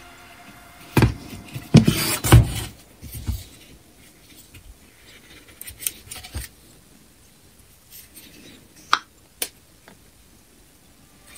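Plastic parts of a cordless sander being handled and fitted together by hand: a cluster of sharp knocks and rubbing in the first few seconds, then scattered light clicks and taps, with two sharper clicks near the end.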